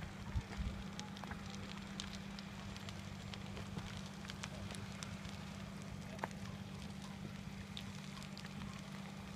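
A burning wooden shed crackling, with scattered sharp pops over a steady low hum.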